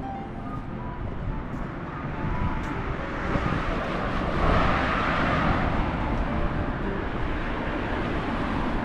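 A road vehicle passing along the street, its noise rising to a peak about five seconds in and then fading, over steady traffic noise.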